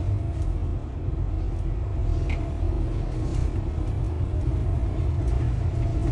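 Steady low rumble of a bus driving, its engine and tyres heard from inside the cabin, with a faint steady whine above it.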